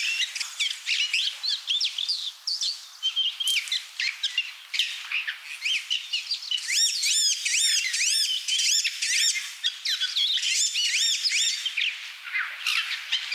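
Small birds chirping and twittering in a dense, overlapping chorus of quick, arching high notes, thinning briefly around five to six seconds in.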